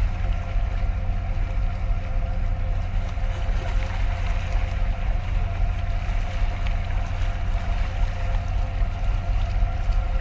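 Engines and machinery of the large container ship Thalassa Tyhi droning steadily as it passes close by: a deep even hum with a faint steady whine above it.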